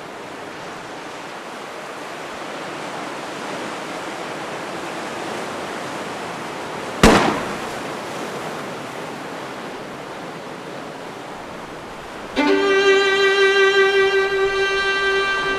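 A single gunshot about seven seconds in, over a steady background hiss. About twelve seconds in, bowed violin music comes in, holding a long note.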